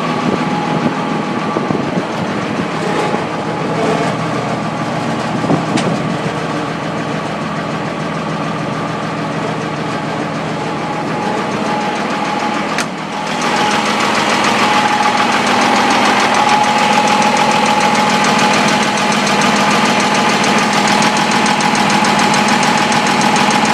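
M35A2 deuce-and-a-half truck's multifuel diesel engine running with a weird knocking noise. About halfway through it briefly dips, then runs louder and steady.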